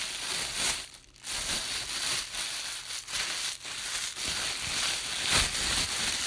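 Plastic bag being crunched and crumpled by hand: dense, irregular crinkling that dips briefly about a second in, with a sharper burst of crackles a little past five seconds.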